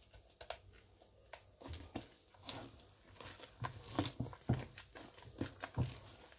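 Stiff beaten egg whites being folded into a thick batter in a metal bowl: irregular wet squelches and soft knocks of the utensil, sparse at first and coming thicker and heavier from about halfway through.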